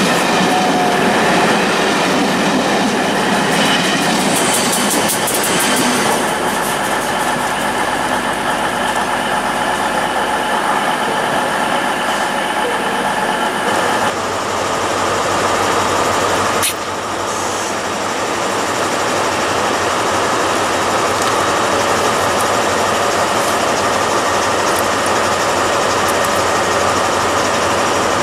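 Passenger coaches of a loco-hauled train rolling past, wheels clattering on the rails. About fourteen seconds in this gives way to a Class 43 HST diesel power car with an MTU engine, idling with a steady hum.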